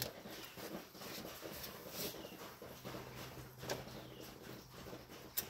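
Faint handling noise as a rubber firewall grommet on a choke cable is worked back into its hole: scattered light clicks and rustles, with a few sharper clicks about two seconds in, near four seconds and near the end.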